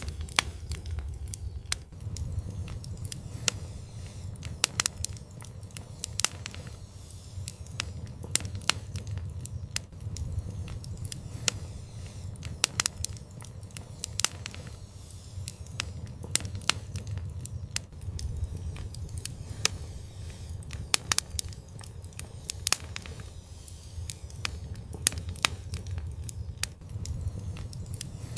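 Wood fire in an outdoor fireplace crackling, with irregular sharp pops and snaps over a steady low rumble of the burning fire.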